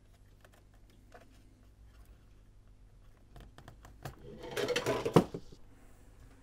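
Faint clicks of wires and plastic parts being handled, then about four seconds in a louder scraping rustle of the record player's plastic casing being moved and pushed together, ending in one sharp knock.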